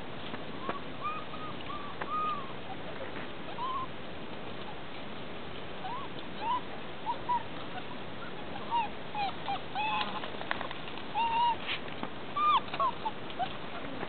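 Six-week-old Belgian Malinois puppies giving short, high yips and squeals while they play, a few at first, then coming thick and louder in the second half, over a steady hiss.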